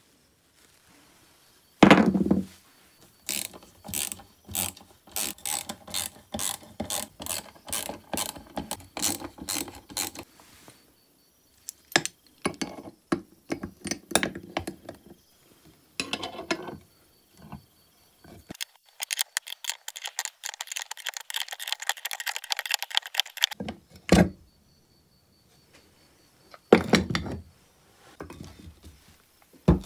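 A three-jaw gear puller being worked on a chainsaw crankcase, its screw turned with a ratchet: several runs of sharp ratchet clicks, with a fast continuous run of clicking in the second half. A couple of heavier metal knocks come near the end.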